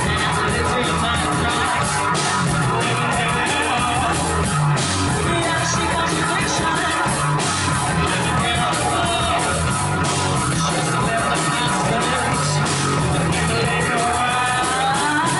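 A live band playing loud, heavy rock music, with electric guitar and drum kit.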